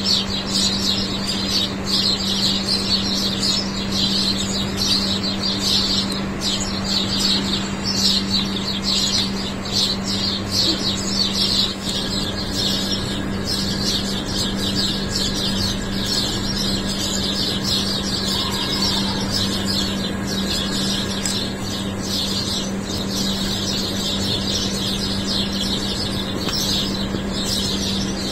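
Dawn chorus of many small birds chirping rapidly in the trees, busiest for the first twelve seconds or so and thinning after, over a steady low mechanical hum.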